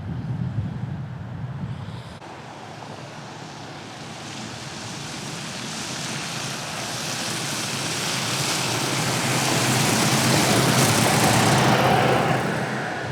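A vehicle passing on the street. Its noise builds gradually over about ten seconds and falls away near the end.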